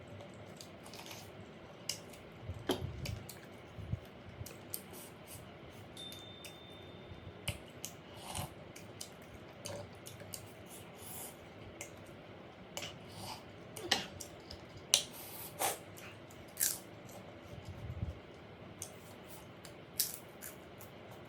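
Close-up eating sounds of someone eating curry noodles: chewing and biting, with irregular wet mouth clicks and small smacks scattered throughout.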